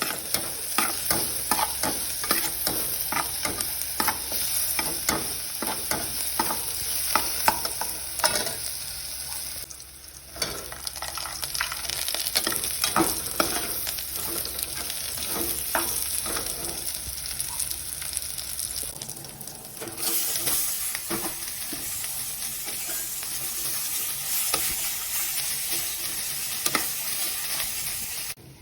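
Food sizzling in a hot pan while it is stirred, the utensil clicking and scraping against the pan many times, with a brief drop about ten seconds in.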